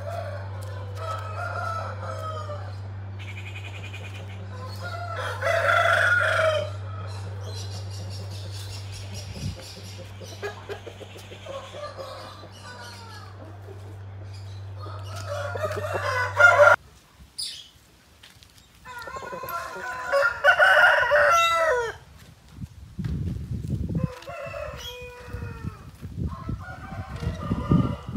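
Aseel roosters crowing again and again, about five long crows with pauses between. A steady low hum sits under the first part and cuts off abruptly about two-thirds of the way through.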